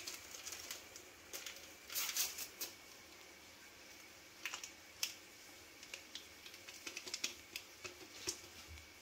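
A paper baking-powder sachet crinkling and ticking as it is opened and its powder tapped out over flour in a plastic bowl: quiet, scattered little clicks in a few short clusters.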